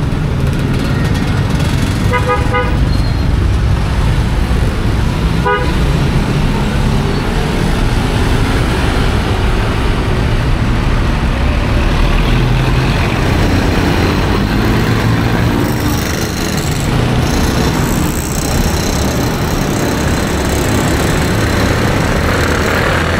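Busy city street traffic running steadily, with a vehicle horn giving a short toot about two seconds in and a briefer one about five and a half seconds in.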